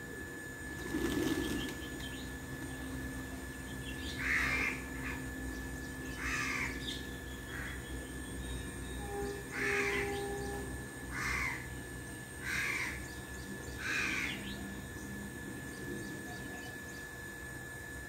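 A crow cawing, about seven short harsh calls one to two seconds apart, starting about four seconds in; a brief thump about a second in.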